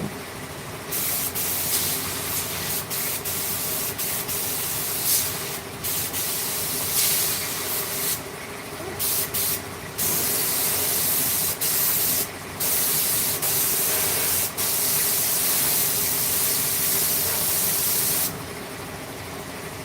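Compressed air hissing from an air-powered spray or blow gun in repeated bursts, some short and some several seconds long, stopping near the end. A steady machine hum runs underneath.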